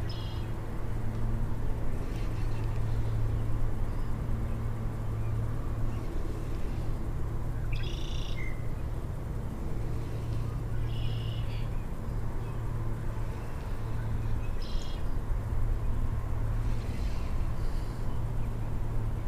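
A bird calling, a short high call repeated every few seconds, over a steady low hum.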